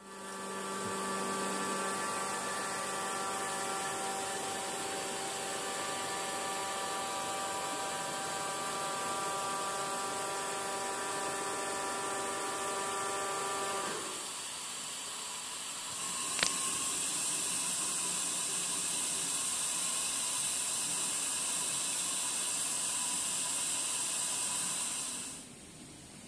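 3D printer running: a steady whine of several held tones over a strong hiss. The tones stop about 14 seconds in, a single click follows a couple of seconds later, and the hiss goes on louder until it cuts off near the end.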